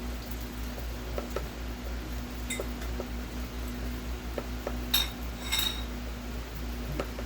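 Small metal parts clinking during bench work: scattered light clicks, then two sharp ringing metallic clinks about five seconds in, over a steady low hum.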